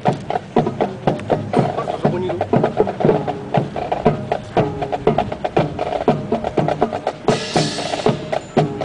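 Rifle drill team's rifles and boots clacking sharply in rhythm, about two to three clacks a second, as the squad marches and handles its rifles in unison.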